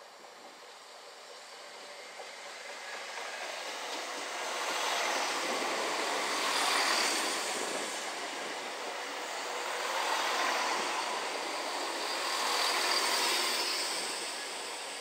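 CrossCountry Class 170 Turbostar diesel multiple unit running into the platform to stop, its wheels and underfloor diesel engines growing louder as the carriages pass close by. The noise swells and eases several times as the cars go past.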